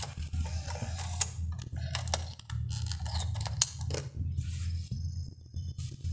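Car DVD/CD head unit's mechanism whirring with a low hum that stops and starts, and several sharp clicks, as a disc is loaded and the fold-down front panel closes.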